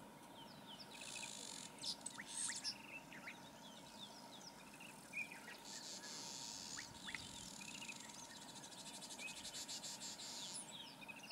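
Quiet bush ambience: an insect buzzes high-pitched in several stretches, the longest from about six to ten and a half seconds in with a fast pulsing, while birds give many short chirps.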